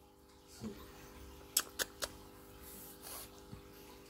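Three quick, soft lip smacks of a baby kissing a cheek, about a second and a half in, over a faint steady hum.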